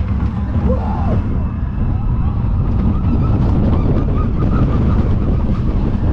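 Arrow steel looping coaster train running down a drop: its wheels rumble on the track and wind rushes over the wrist-mounted camera's microphone, with riders yelling about a second in and again around the bottom of the drop.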